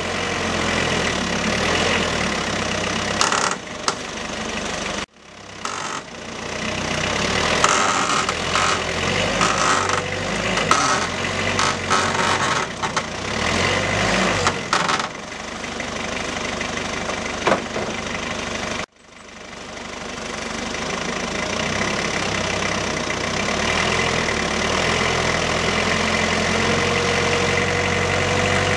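An engine running steadily, with clanks and knocks about a third of the way in, heard across three separate cuts. Near the end a whine rises slowly in pitch.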